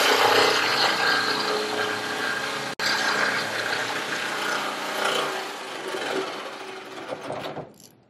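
Power saw cutting through a Mercedes Sprinter van's sheet-metal door to open a window hole: a loud, dense rasping that breaks off for an instant about three seconds in and dies away near the end.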